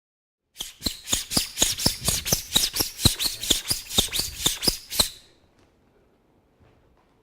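Kitchen knife blade stropped quickly back and forth on canvas, about twenty scraping strokes at some four a second for roughly four seconds, then stopping. This strips off the burr left by sharpening.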